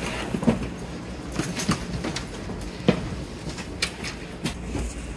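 Cabin sound inside a business-class carriage of a high-speed train standing at the platform: a low steady hum with scattered sharp clicks and knocks, the loudest about three seconds in.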